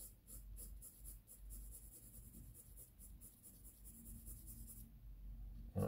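Faint scratching of a pencil held on its side, shading on a drawing pad in repeated short strokes that stop shortly before the end.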